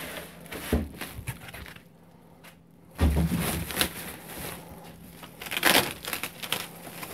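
Thin plastic bag crinkling and rustling in bursts as it is worked off a desktop computer tower, with a pause of about a second near the middle. A dull bump sounds about three seconds in.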